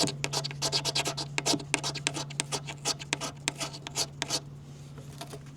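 Knife blade scraping in quick, repeated strokes, several a second, stopping a little over four seconds in, over a steady low hum.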